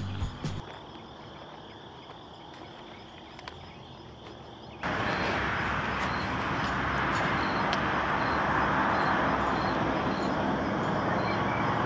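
Evening outdoor ambience: crickets chirping in a faint, regular pattern over a steady hiss. The hiss jumps up sharply about five seconds in.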